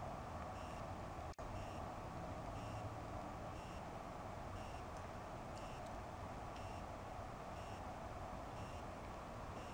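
Faint electronic beeping: short, high beeps recurring about once a second over a steady hiss, with a momentary dropout in the sound about a second and a half in.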